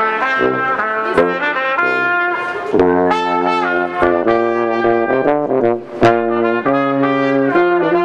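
Brass music: trumpets and trombones playing held notes that change every half second to a second.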